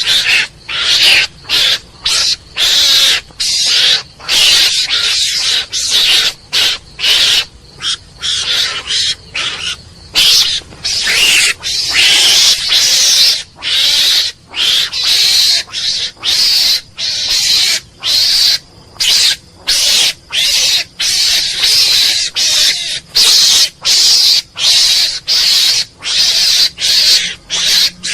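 Mongoose calling: a long series of harsh, hissing calls, one after another at about one or two a second with brief gaps between them.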